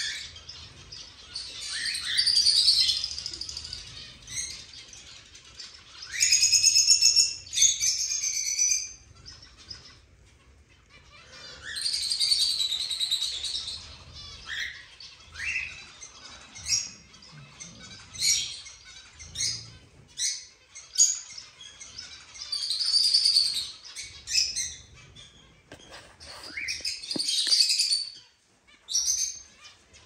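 A mixed flock of captive cage birds, finches and cockatiels among them, chirping and calling in overlapping bursts. Some calls are short high chirps and others are longer whistled calls.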